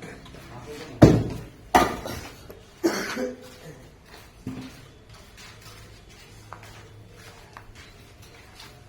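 Four loud knocks or clatters of hard objects, each ringing briefly: three close together starting about a second in, and a smaller one about four and a half seconds in.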